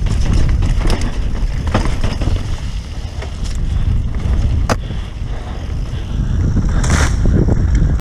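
Mountain bike descending a dirt trail: wind buffeting the microphone and tyres rumbling over the ground, with a few sharp knocks and rattles from the bike over bumps, the biggest about seven seconds in.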